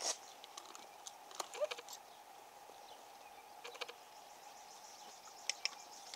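Faint scattered clicks and jingles from a pony's bridle and snaffle bit as it moves under a rider, over a light steady hiss.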